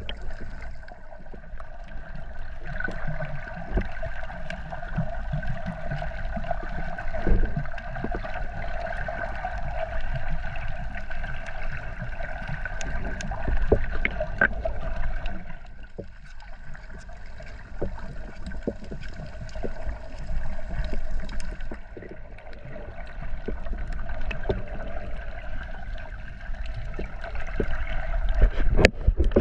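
Water gurgling and crackling with scattered clicks over a steady hum, as picked up by a camera in the sea while snorkeling.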